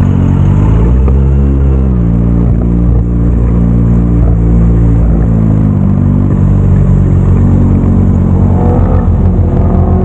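Motorcycle engine running close to the rider's helmet camera, rising briefly in revs about a second in and settling back, then running low and steady with a fast even pulse as it rolls slowly through traffic and stops.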